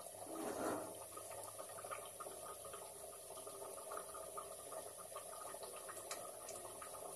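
Dalma (lentils and vegetables) simmering in an open aluminium pressure cooker on a gas burner: a steady bubbling with many small irregular pops, and a brief louder swell about half a second in.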